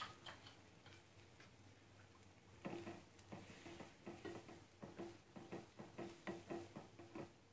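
Metal spoon stirring thick gram-flour batter in a metal kadhai: faint scrapes and taps of the spoon against the pan, about three a second, starting about three seconds in.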